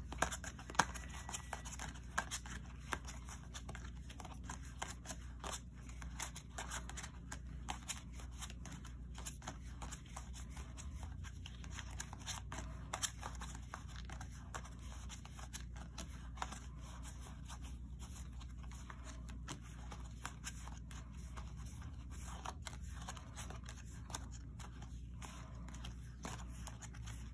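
A deck of tarot cards handled one by one, with a continual patter of soft card clicks, slides and scrapes as each card is flicked across and the non-playing cards are pulled out of the deck. A steady low hum runs underneath.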